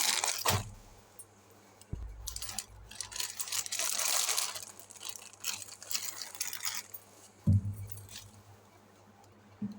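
Plastic balloon packaging rustling and crinkling as it is handled, in several stretches. A dull thump comes a little after halfway and is the loudest sound, with a smaller knock near the end.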